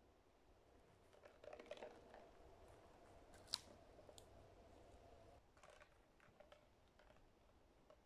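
Faint rustling and light clicks of a person handling a freshly picked mushroom and moving over the mossy forest floor, with one sharp click about three and a half seconds in.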